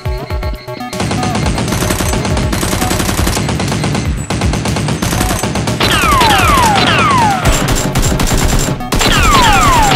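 Rapid automatic gunfire sound effect, a fast run of shots starting about a second in, dubbed over Nerf blaster action. From about halfway, repeated falling whistles join the fire, over background music.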